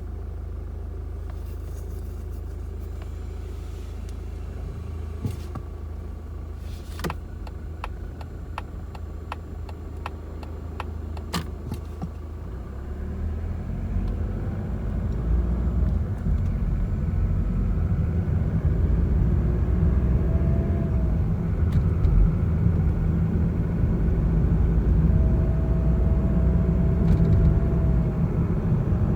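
Mazda CX-30 1.8 L diesel being driven, its engine and road rumble growing louder as it gathers speed. Twice, a thin recorder-like whistle rises above the rumble for a second or a few seconds. The whistle is an abnormal noise whose cause is unknown: it persisted after the dealer replaced the turbocharger, a partial engine and the exhaust parts.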